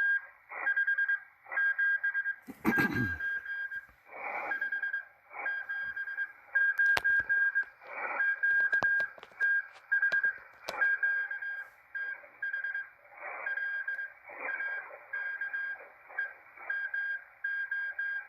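Morse code (CW) signal on shortwave heard through a Malachite DSP SDR receiver: a steady beep switched on and off in dots and dashes over band hiss, with a few sharp clicks, the loudest about three seconds in.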